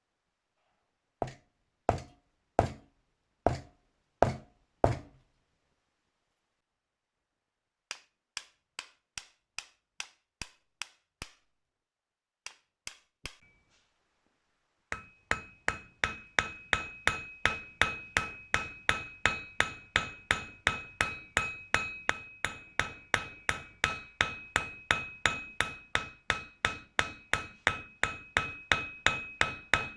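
Hammer striking metal: five heavy blows, then a few lighter taps, then from about halfway a fast, even run of about two to three blows a second with a clear metallic ring.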